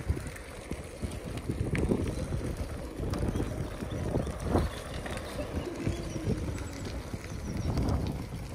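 Bicycle rolling over a rough paved path, its frame and handlebars rattling and knocking irregularly over a steady low rumble from the tyres.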